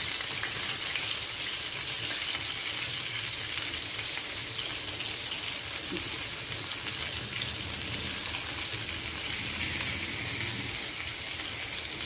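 Chicken pieces frying in oil in a cast-iron grill pan, with a steady sizzle.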